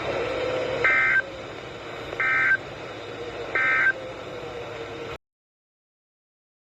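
Emergency Alert System end-of-message code: three short bursts of two-tone SAME digital data over radio hiss, about 1.3 seconds apart, marking the end of the severe thunderstorm warning broadcast. The sound cuts off abruptly about five seconds in.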